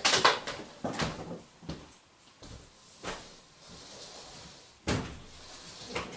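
Several separate knocks and clunks of things being handled in a small, enclosed room, the loudest right at the start, with others about a second in, around three seconds and near five seconds.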